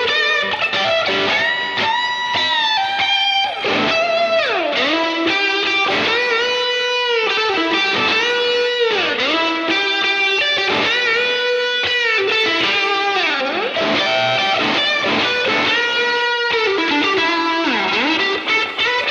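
Electric guitar played through a UAFX Enigmatic amp-emulator pedal, an overdrive special-style amp tone: a lead line of sustained notes. Every few seconds a note slides down in pitch and back up.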